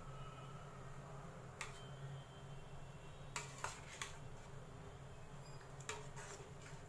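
Metal ladle stirring thick semolina kheer in a steel bowl, with several light clinks against the bowl's side.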